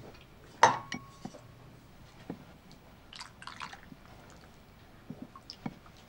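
Ladle and spoon clinking against porcelain bowls while food is dished up: one sharp, ringing clink about half a second in, then scattered softer taps.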